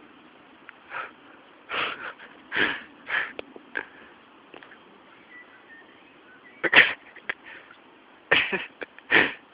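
Short, breathy sniffs and puffs of breath close to the microphone, about eight irregular bursts with a pause in the middle.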